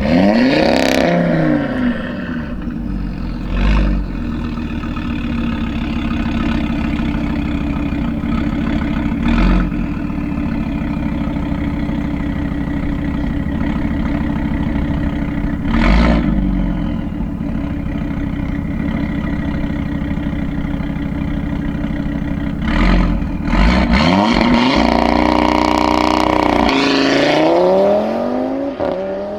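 Tuned Audi RS3 Sportback 8V's turbocharged 2.5-litre five-cylinder running through a full Milltek sport exhaust, holding steady revs with a sharp pop every several seconds. The revs rise and fall near the start and again over the last few seconds, then the sound drops away near the end.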